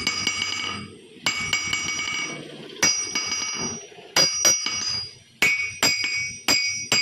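Steel hammer head struck on an anvil about nine times at uneven spacing, with quicker blows near the end. Each strike leaves a clear, high metallic ring that fades over about a second.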